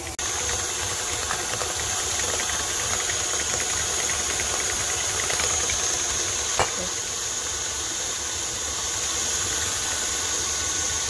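KitchenAid Classic Plus 275-watt stand mixer running steadily, its flat beater creaming butter and sugar in a steel bowl, with a high-pitched motor whine over a low hum. One short click comes about two-thirds of the way through.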